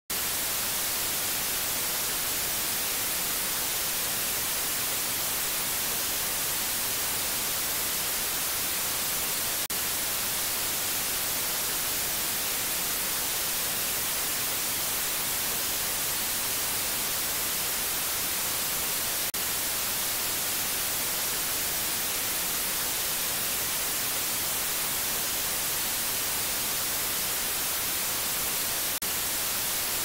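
Steady white noise, an even hiss, with a tiny break about every ten seconds.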